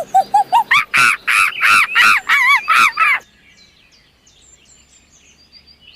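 An animal's loud, repeated calls: a quick run of notes climbing in pitch over the first second, then about eight loud calls that stop suddenly about three seconds in. Faint bird chirping follows.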